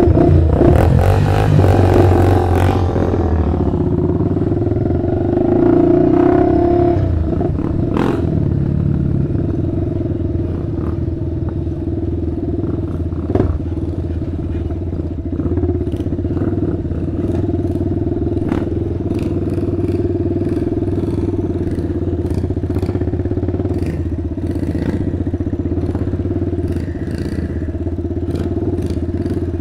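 Sport quad's engine running as it is ridden along a dirt trail. The revs rise over the first few seconds, then it settles to a steady cruising pace, with scattered knocks and clatter as the machine rides over bumps.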